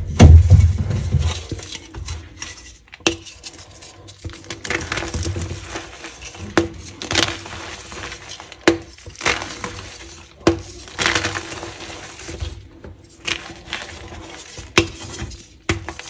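Reformed gym chalk block being snapped and crumbled by hand over a heap of loose chalk powder. A heavy low thud comes just after the start, then a run of sharp cracks and crunchy crumbling as the pressed chalk breaks into chunks.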